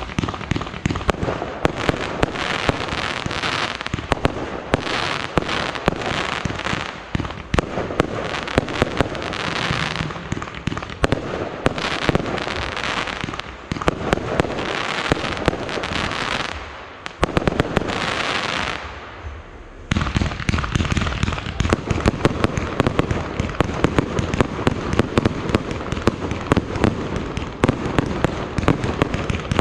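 Fireworks display: continuous crackling shells and rapid bangs. The noise eases for a moment about two-thirds through, then a denser, heavier barrage of bangs takes over.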